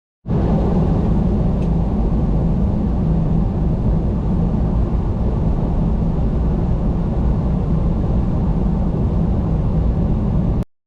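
Semi truck driving: a steady, loud low rumble of diesel engine and road noise. It starts abruptly and cuts off abruptly.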